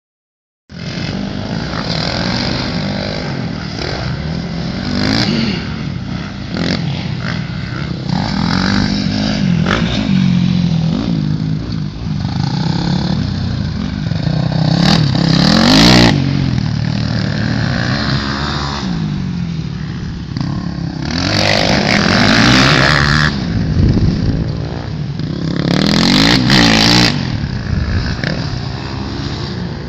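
Several motocross dirt bikes revving around a track, their engine notes rising and falling and overlapping one another. It is loudest about halfway through, as a red Honda CRF450R passes closest.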